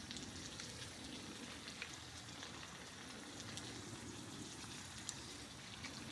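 Food sizzling in a grill pan over a portable gas burner: a faint steady hiss with scattered small pops and spits.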